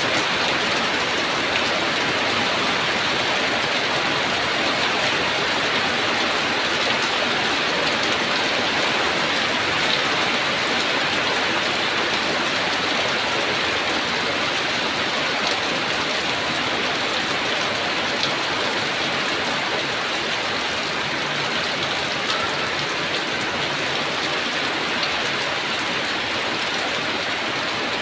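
Heavy rain falling steadily, a dense even hiss with scattered individual drops.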